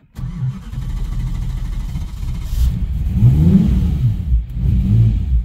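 Twin-turbo V10 engine firing up on a cold start and running a loud, uneven idle, the revs rising and falling about three seconds in. Its cold-start fueling has been cut back a lot, and the owner thinks it probably needs readjusting.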